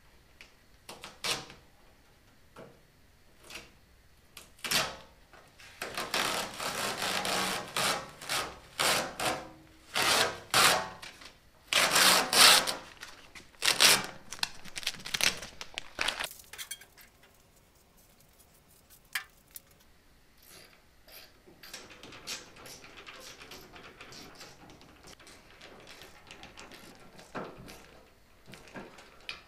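Green painter's masking tape being pulled off a painted steel tailgate in a run of loud ripping strokes, preceded by a few sharp knocks. In the last third only faint handling and tool sounds remain.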